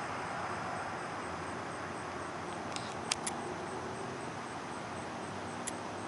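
Steady outdoor background noise, with a faint, fast, even high pulsing. A few short sharp chips or clicks come around the middle and once near the end.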